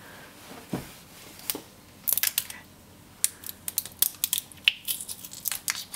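Crinkling and clicking of the plastic shrink-wrap on a plastic surprise egg as it is picked up and handled. There are a couple of soft knocks at first, then a dense run of sharp, irregular crackles from about two seconds in.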